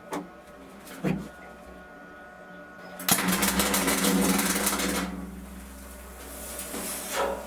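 MIG wire-feed welder laying a tack weld. Two brief crackles come in the first second or so as the arc strikes. About three seconds in comes a loud, rapid crackle of the arc lasting roughly two seconds, then one more short burst near the end.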